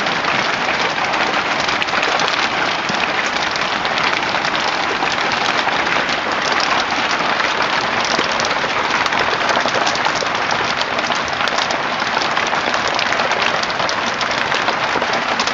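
Hailstones pelting down: a steady, dense clatter of countless small impacts.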